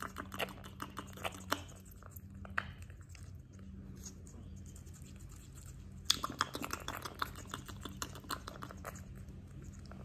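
Quaker parrot nibbling raw red bell pepper: soft crunchy bites and beak clicks, coming in a quick run of them about six seconds in.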